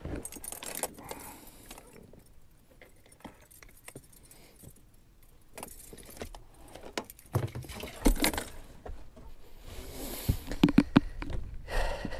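Metal snap clips of a fish stringer clinking and jangling as a crappie is clipped on and the stringer is handled, in scattered clatters with louder flurries about eight seconds in and again near ten.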